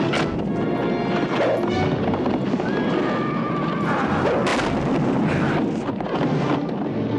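Film soundtrack: dramatic score music under battle sound effects, with a horse whinnying and two sharp hits, one right at the start and one about four and a half seconds in.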